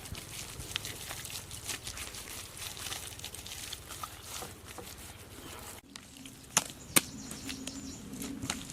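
Hands-on building work outdoors: scattered rustling and light clicks of material being handled, then two sharp knocks about two-thirds of the way through, half a second apart.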